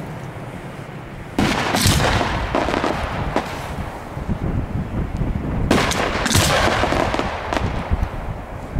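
Aerial fireworks going off in a continuous barrage of bangs and crackling, with a sudden jump to louder blasts about a second and a half in and another loud burst around six seconds.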